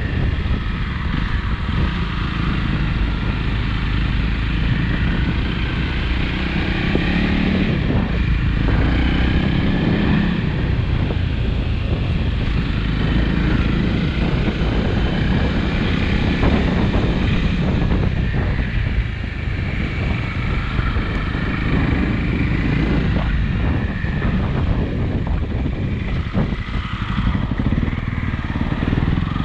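Motorcycle engine running steadily while riding, its pitch wavering a little with the throttle, over a heavy low rush of wind on the microphone.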